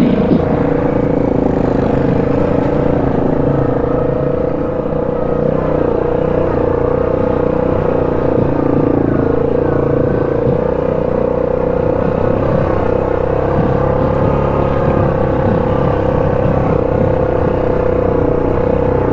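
ATV engine running at a steady speed while riding, with a constant engine note and no pauses.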